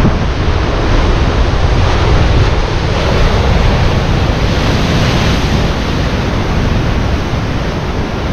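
Sea waves breaking and washing ashore in a steady rush, with wind buffeting the microphone and adding a heavy low rumble.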